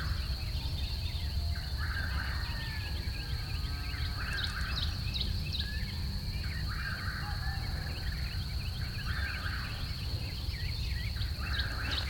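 Morning birdsong in the open: many small birds chirping, with one louder call repeating about every two and a half seconds, over a steady high-pitched whine and a low rumble.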